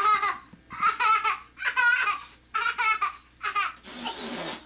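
Toddler laughing and squealing in short high-pitched bursts, about one a second, while being tickled. Near the end comes a short breathy rush of noise.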